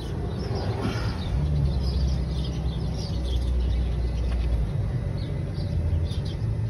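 Small birds chirping repeatedly in quick short calls, over a steady low rumble that swells for a few seconds in the middle.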